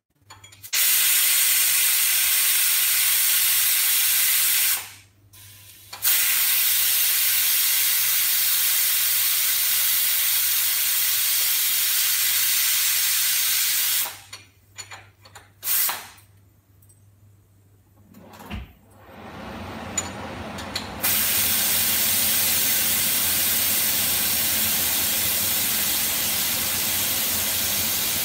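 Steam hissing loudly out of a stovetop pressure cooker's vent as its whistle weight is lifted by hand to let the pressure out. The hiss stops and starts again: briefly near the start, for about a second around five seconds in, and for several seconds in the middle with a few short spurts before it comes back in full.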